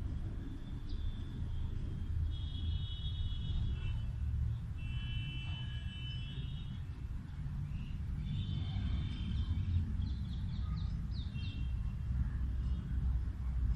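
Outdoor ambience: birds calling in several short phrases of high notes, some ending in quick falling chirps, over a steady low rumble.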